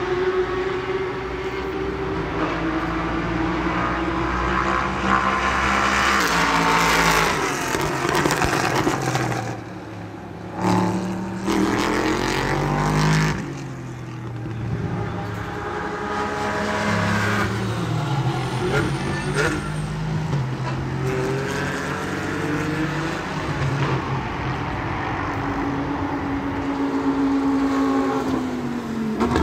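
Auto-racing audio: race car engines revving, their pitch climbing and falling again and again as the cars accelerate, shift and pass.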